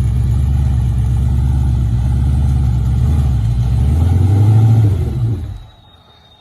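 Off-road 4x4's engine running hard under load, with a rise in revs about four seconds in. The sound stops abruptly about five and a half seconds in.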